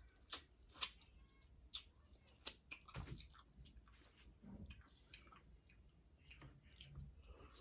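A person chewing and smacking while eating, with a handful of short, sharp clicks in the first three seconds, then softer chewing.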